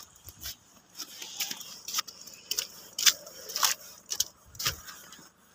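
Footsteps crunching in snow, about two steps a second.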